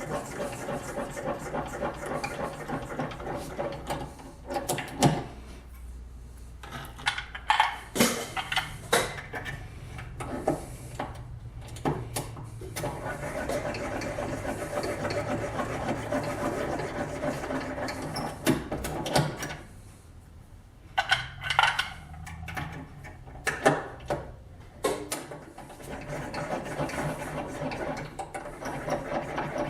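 A small electric motor whirring in long spells, stopping and starting, with sharp metallic clicks and knocks of reloading equipment and brass cases being handled between the spells.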